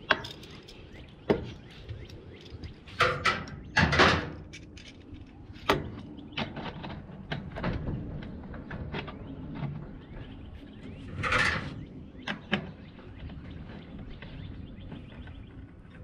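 Perforated metal strapping being wrapped around a pipe and fastened with small bolts and nuts: scattered metallic clicks and rattles, with short rasping bursts about three to four seconds in and again about two-thirds through.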